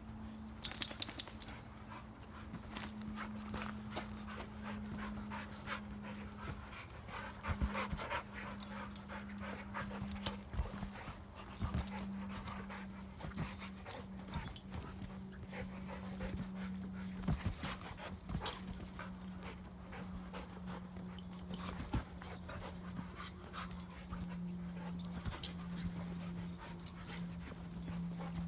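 Two dogs play-fighting on a trampoline, panting and whimpering, with many short knocks and rattles from their scuffling, the loudest about a second in. A steady low hum, slowly falling in pitch, runs underneath.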